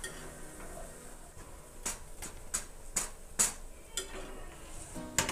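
A wire-mesh skimmer lifting deep-fried betel-leaf bajjis out of hot oil in a steel kadai: a run of about seven sharp clicks and clinks from about two seconds in, over a faint steady hiss.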